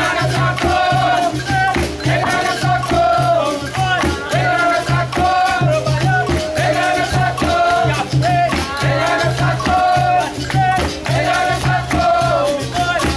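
Capoeira roda music: berimbaus with caxixi shakers and an atabaque drum keeping a steady rhythm, with a group singing over it.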